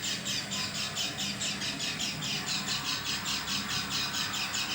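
Pleci (white-eye) bird calling in a rapid, even series of high-pitched notes, about four or five a second, a call its owner finds strange and unlike its usual song.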